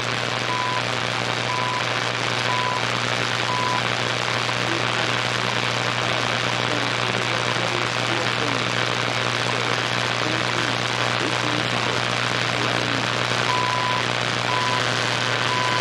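CHU time signal on 3.33 MHz received on a Raddy RF320 portable shortwave radio: steady static hiss and a low hum, with the station's short 1 kHz second ticks, about one a second. The ticks come through in the first few seconds and again near the end, and are lost in the noise in between: a weak signal, received at a distance from the transmitters.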